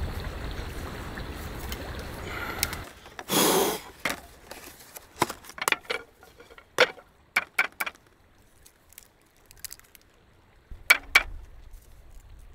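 Steady wind rumble on the microphone that cuts off suddenly a few seconds in. Then a brief loud rustle, followed by scattered light clicks and clinks of cooking utensils and dishes during food preparation, with two sharp ones near the end.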